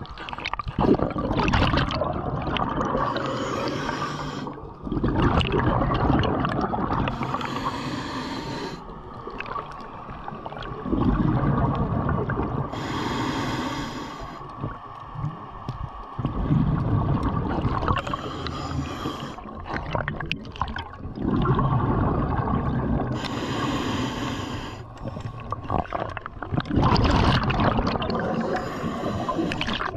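Scuba diver breathing through a regulator underwater: a short hissing inhale, then a longer rumbling, gurgling rush of exhaled bubbles, repeating in a slow cycle.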